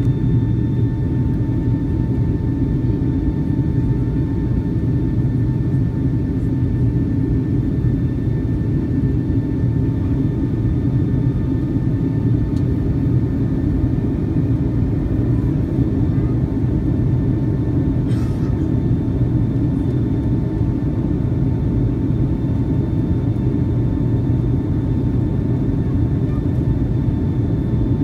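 Steady low rumble of a jet airliner's engines and rushing air heard from inside the passenger cabin on descent toward landing, with a faint steady whine on top. A brief faint click comes about two thirds of the way through.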